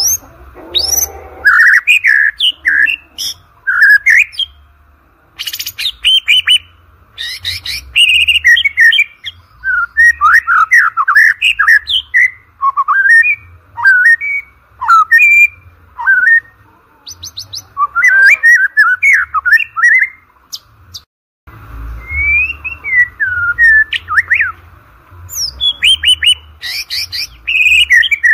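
White-rumped shama (murai batu) singing a loud, varied song of quick whistled phrases, slurred notes and sharp clicks, in bursts with short pauses. About three quarters in, the sound stops dead for a moment, then the song resumes. A faint steady hiss runs beneath it.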